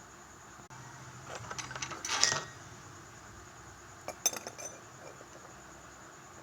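Kitchenware clinking and clattering in two bunches: a run of clinks building to the loudest knocks about two seconds in, then a few sharp clinks about four seconds in.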